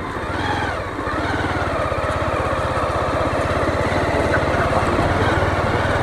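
Motorcycle engine running as it rides slowly along a dirt track, picking up a little about a second in, then holding steady.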